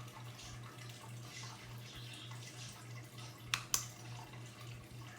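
Plastic Play-Doh tools being handled, with soft rustling and two sharp plastic clicks in quick succession about three and a half seconds in, over a low steady hum.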